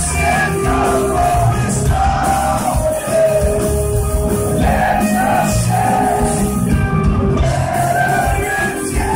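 Post-hardcore rock band playing live, with distorted electric guitars, drums and a sung vocal, loud and continuous, heard from within the audience.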